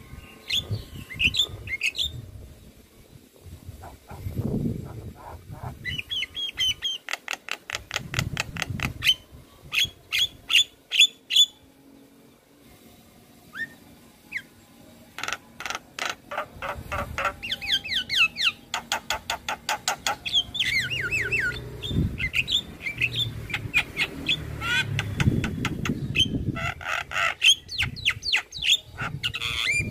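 Javan myna singing in bouts: rapid trains of clicking notes mixed with short whistled chirps that slide up and down, with a quieter lull about halfway through.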